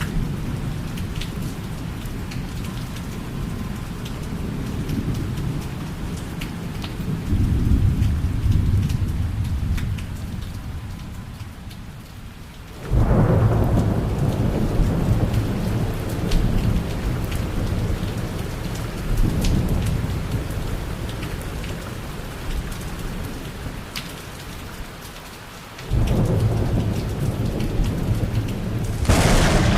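Thunderstorm: steady rain with thunder rumbling throughout. Two sudden loud peals break in, about halfway through and again a few seconds before the end, each rolling on afterwards. A sharp crack of thunder follows near the very end.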